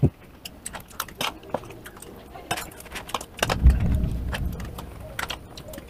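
Metal spoon clinking and scraping on a ceramic plate as pieces of chocolate cake are cut and scooped, in scattered sharp clicks. A brief low thud comes about three and a half seconds in.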